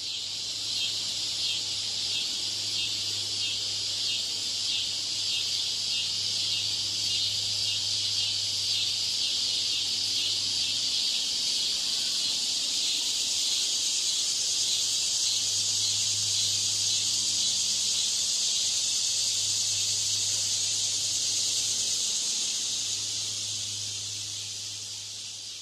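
Cicada chorus: a loud, high-pitched buzz that pulses rapidly for the first ten seconds or so, then settles into a steady drone and fades near the end. A faint low hum comes and goes underneath.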